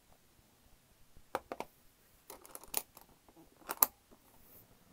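Hard clarinet case being closed by hand: a few groups of light knocks and clicks from the lid and its metal catches, the sharpest click about four seconds in as the lid comes shut.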